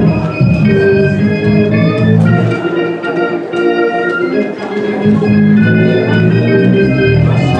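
Organ playing sustained chords over a bass line as offertory music during the collection; the bass drops out for a couple of seconds around the middle, then comes back in.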